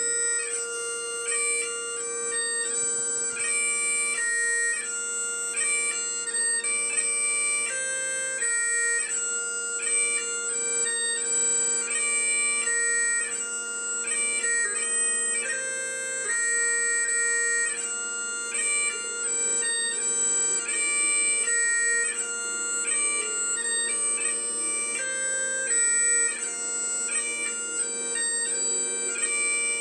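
Bagpipes playing a tune: a stepping chanter melody over steady, unbroken drones.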